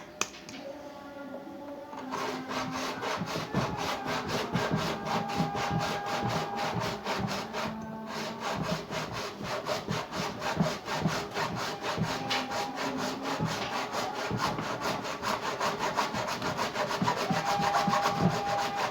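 A saw cutting through the plastic outer tub of an Ariston washing machine, split open to reach the drum bearings. Rapid, even strokes start about two seconds in and keep going.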